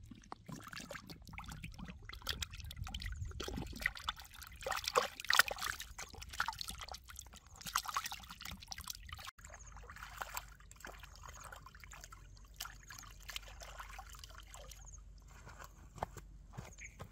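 Water sloshing, splashing and trickling as a plucked duck carcass is rinsed by hand in pond water. About nine seconds in it cuts to a quieter stretch of occasional small splashes and drips over a steady low rumble.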